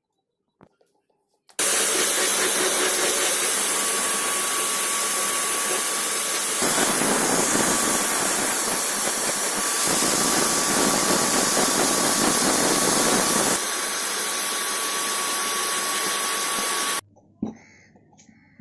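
Loud steady hissing spray with a faint steady whine over it. It starts abruptly about a second and a half in, grows fuller for a stretch in the middle, and cuts off sharply near the end.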